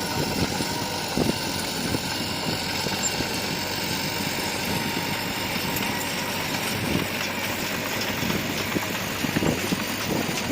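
A bulldozer's diesel engine running steadily, with a few short low thumps about a second in, around seven seconds in and near the end.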